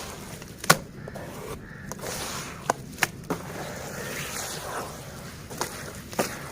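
Lumps of soft red dirt crumbling and breaking apart in water, close up: a steady soft crackle broken by about six sharp, crisp snaps.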